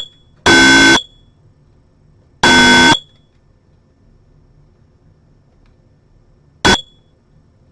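Battery smoke detector's piezo buzzer sounding its alarm, a shrill beep in the three-beep pattern: two half-second beeps in the first three seconds, then, after a pause of a few seconds, one short chirp.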